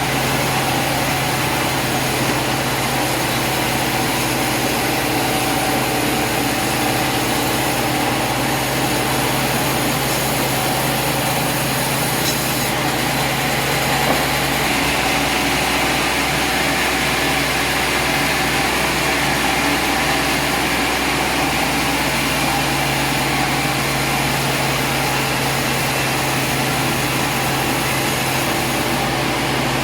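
An engine running steadily at constant speed.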